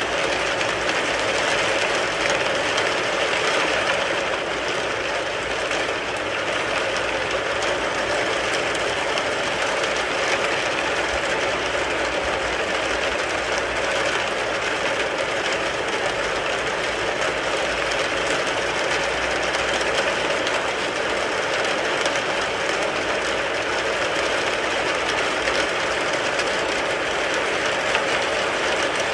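Steady rain falling on a car, a dense, even patter that holds at one level without let-up.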